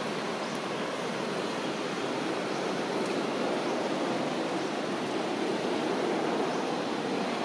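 Steady rushing background noise, even throughout, with no distinct calls or knocks.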